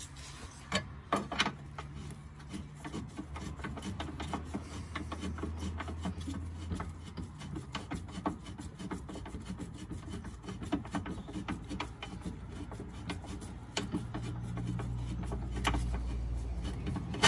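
Hand ratchet clicking in quick, rasping strokes as it backs out a 16 mm brace bolt that has already been cracked loose, with a few sharper knocks of the tool against the bolt about a second in and near the end.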